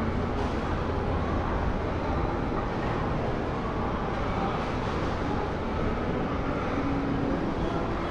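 Steady hubbub of a busy shopping mall's interior: a constant low hum with indistinct voices blended in.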